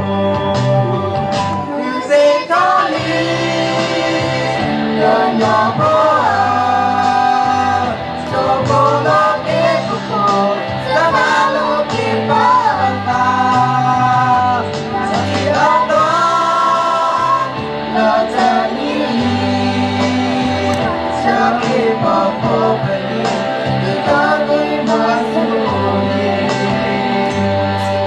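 A group of children, boys and girls, singing a song together into microphones over amplified backing music with a steady bass line.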